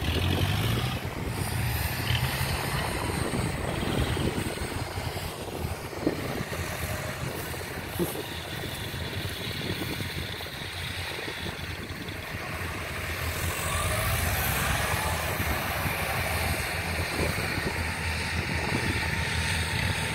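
Engine of a tracked rice-sack carrier running steadily, its pitch rising and falling in the second half, with two short knocks about six and eight seconds in.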